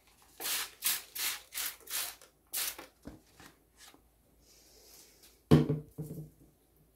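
Hand-pump spray bottle spritzing paper, about six quick hissing sprays in the first three seconds, then a few fainter ones. About five and a half seconds in comes a sharp knock, as of the bottle set down on the table.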